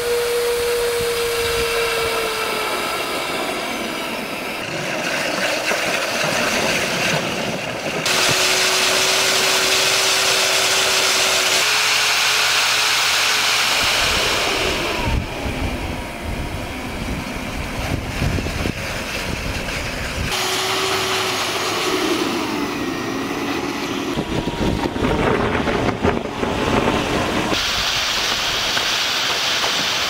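Eureka Pet Pal vacuum cleaner motor running with a steady whine over rushing air, its pitch sliding down and shifting. The sound changes abruptly several times, with stretches of rough, uneven low noise.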